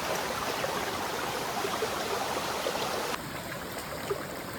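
Small stream running over stones: a steady rush of water, a little quieter from about three seconds in.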